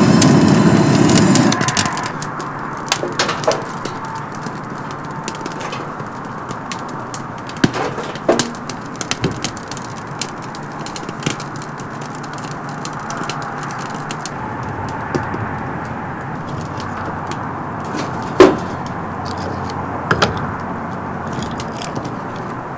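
A gas torch's blast cuts off about a second and a half in, leaving firewood burning in a metal fire box, crackling and snapping with a few louder cracks.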